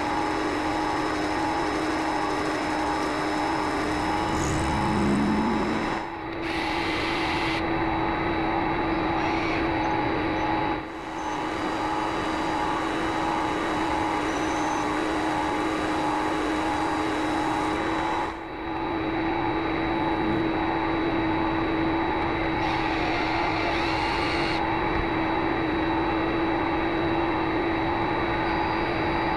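Vevor MX400 mini lathe running steadily with a constant motor whine, with three brief dips in level.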